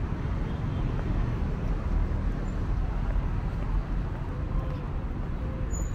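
City street ambience: a steady low rumble of road traffic with no distinct single event.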